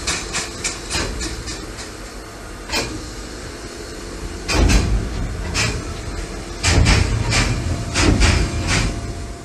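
Clanking and knocking in the cab of a 1922 steam shunting locomotive: a quick run of sharp knocks, about three or four a second, for the first couple of seconds, then scattered knocks, with heavy low rumbling surges about halfway through and again near the end.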